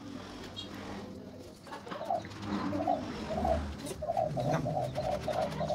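A bird calling in a run of short, evenly pitched notes that start about two seconds in and come faster, about four a second, in the second half.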